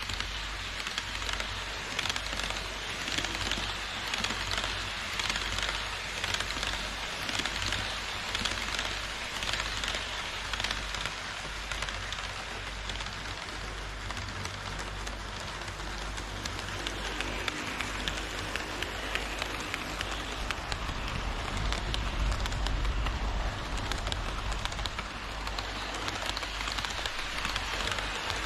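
HO-scale model train, double-headed EF81 electric locomotives with Twilight Express cars, running on plastic-roadbed sectional track: a steady, crackly rattle of metal wheels on the rails. A low rumble grows heavier about three quarters of the way through as the cars pass close.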